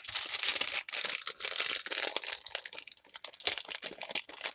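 Clear plastic packaging bag crinkling and rustling as it is handled by hand, with a dense stream of small crackles.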